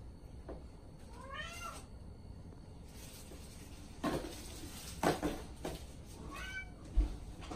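Domestic cat meowing twice, each a drawn-out call that rises and falls, while it tussles with a catnip container. Between the calls come a few sharp knocks, and a low thump near the end.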